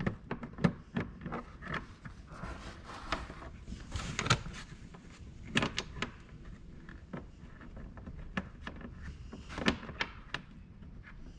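Irregular clicks, knocks and short scrapes of hands and tools working on a four-wheeler's plastic fender and its mounting bolts, as a bolt is worked into place.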